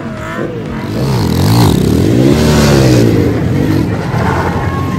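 Motor vehicle engine revving up and down several times, loudest in the middle.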